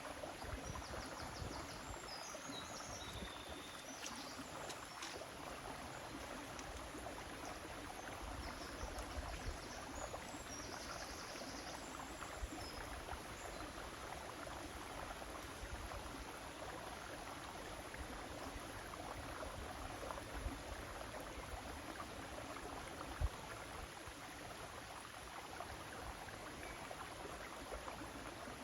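River water flowing steadily, an even rushing sound, with faint high chirps in the first half and one sharp tap near the end.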